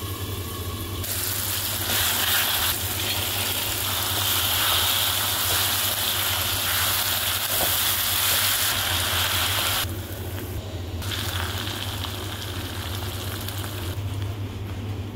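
Bitter gourd, onion and tomato sizzling in hot oil in a wok: a steady frying hiss that dips briefly just after the start and again about ten seconds in.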